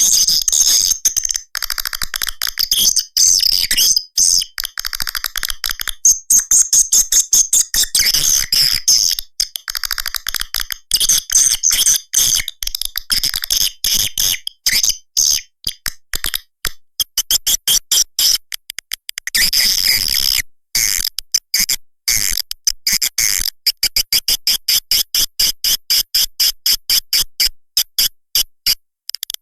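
Swiftlet lure call of the 'walet merah' type: rapid, high-pitched chirps and clicking trills repeated in dense runs with short breaks, played to draw swiftlets into a swiftlet house and keep them roosting there.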